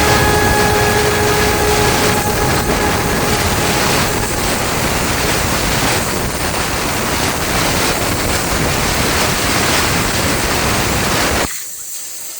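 Spartus 85 plasma cutter's arc hissing steadily as it cuts 5 mm sheet metal. It cuts off sharply near the end, leaving a fainter hiss.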